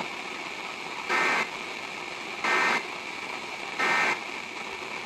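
Three short buzzy bursts of EAS/SAME digital data, about a third of a second each and 1.4 s apart, over steady radio static: the end-of-message code that closes a weather radio alert.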